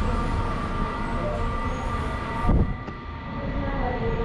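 Steady mechanical hum and whine holding several tones over a low rumble, with a single thump about two and a half seconds in.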